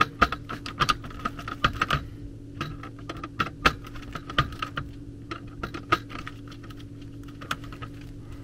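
Screwdriver turning the small terminal screws on an HVAC zone control board's wire terminal strip: rapid, irregular small metallic clicks and ticks, over a steady low hum.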